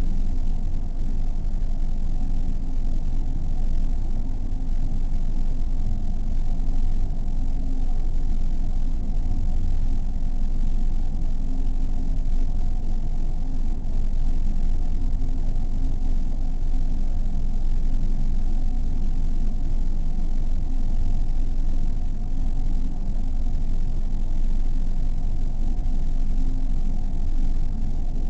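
Dark ambient music generated by a SampleRNN neural network: a steady, low rumbling drone with no beat, its weight in the bass and a held hum in the low middle.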